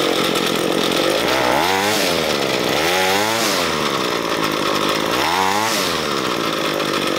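Ryobi ES30 string trimmer's two-stroke engine running and revved up and back down three times. The throttle response is being tested after its main fuel mixture screw was richened another quarter turn to cure a lean hesitation on acceleration.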